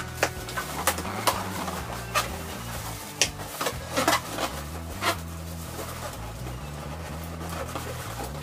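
Latex balloons being handled and tied, giving about eight sharp rubbing squeaks and knocks, most of them in the first five seconds, over soft background music with a steady low bass line.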